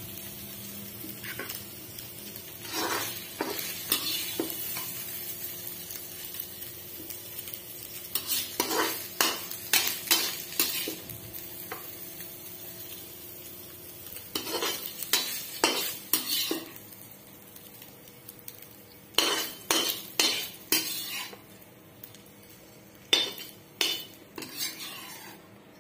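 Metal spatula scraping and clanking against a kadai in several short spells as browned pork pieces are scooped out, over a faint sizzle of the meat frying without oil. The sizzle slowly dies away.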